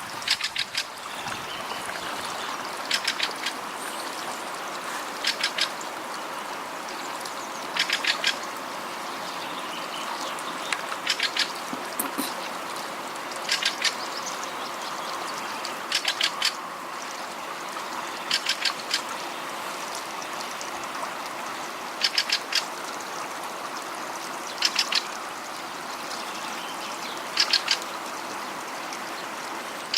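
The steady rush of flooding river water, with a bird repeating a short call of three or four quick notes about every two and a half seconds.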